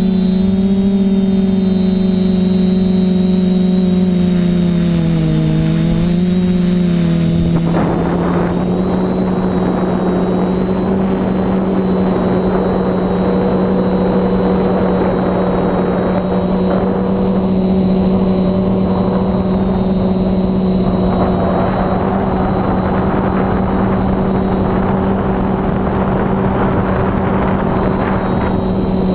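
Quadcopter's brushless motors and propellers buzzing steadily, picked up by its onboard camera. The pitch wavers up and down at first; about seven seconds in, a rushing hiss joins and the buzz settles to a steady pitch.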